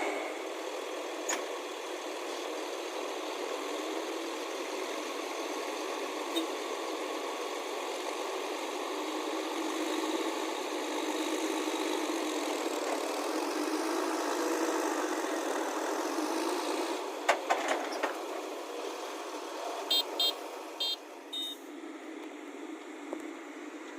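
Engine of heavy road-construction machinery running steadily, with a few sharp knocks about three quarters of the way through and four short high beeps soon after.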